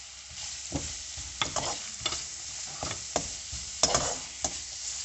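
Sliced onions sizzling as they fry in hot oil with a ginger-garlic and spice masala in a non-stick wok, while a spatula stirs them. The sizzle picks up about half a second in, and the spatula scrapes the pan every half second or so, loudest near the end.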